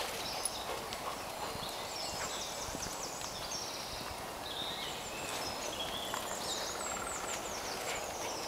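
Birds singing in woodland, many short whistled notes and chirps overlapping, with the soft footsteps of someone walking on a dirt path.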